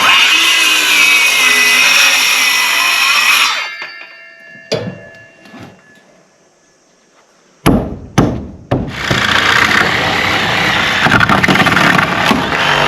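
A power saw runs for about three and a half seconds and winds down, leaving a ringing tone. A few knocks follow, then three sharp bangs, and a loud machine starts up and keeps running.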